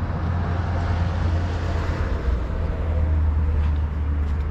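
Steady low rumble of car traffic on the bridge roadway.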